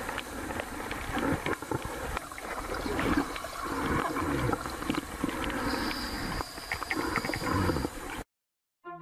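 Crackling, gurgling underwater noise with scattered clicks, swelling and fading every second or so, then cutting off abruptly near the end.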